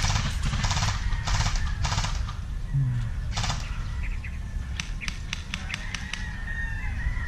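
Airsoft guns firing: several short full-auto bursts, each a quick rattle lasting a fraction of a second, then a string of single sharp cracks about five seconds in.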